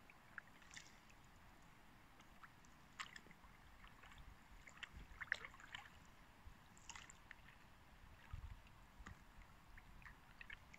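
Faint drips and light splashes of water from a kayak paddle on calm river water: a scatter of small ticks and plops, the sharpest about halfway through, with a low knock a little later.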